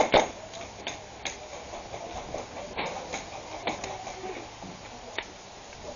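An airsoft gun fires a quick string of shots that ends just as the sound begins. Scattered faint clicks and knocks follow over a low hiss.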